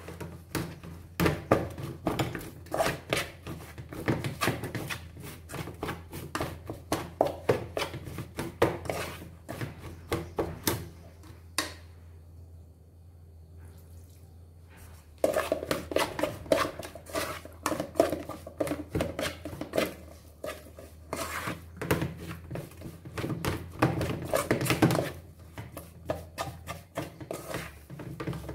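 Rapid, irregular knocking and clattering, a few strokes a second, over a steady low hum; it stops for about three seconds partway through, then resumes.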